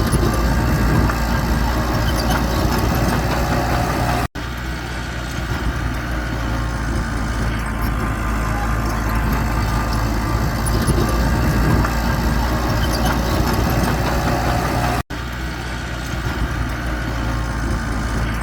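Bulldozer's diesel engine running steadily, dropping out for an instant twice, about four and fifteen seconds in.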